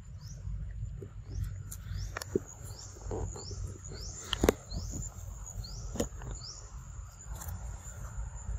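Forest ambience: a steady high insect whine, with a short rising chirp repeating every second or so. A few sharp clicks cut in, the loudest about halfway through.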